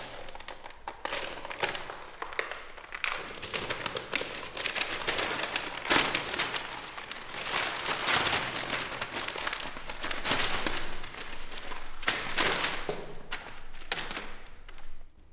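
Paper script being torn up and crumpled by hand: repeated ripping and crinkling bursts, one after another, with a few sharp knocks.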